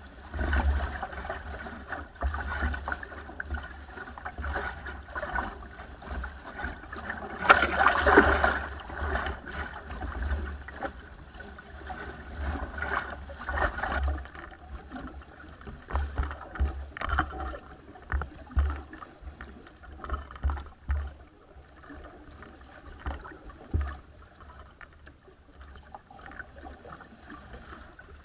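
Water splashing and rushing against the bow of a small wooden sailing dinghy under way in a chop, with wind rumbling on the microphone. The sound comes in uneven surges, with the biggest splash about eight seconds in.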